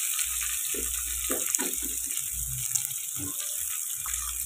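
Freshly added diced onions, curry leaves and mustard seeds sizzling steadily in hot oil in a kadai, an even frying hiss.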